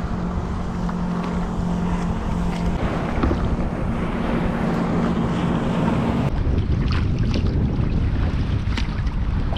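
Wind rumbling on the microphone over a steady low engine hum, which cuts off abruptly about six seconds in; a few light splashes or knocks follow.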